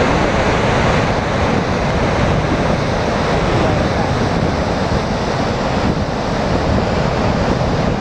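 Steady rushing of a wide waterfall and its rapids, white water pouring over rock ledges, with wind buffeting the microphone underneath.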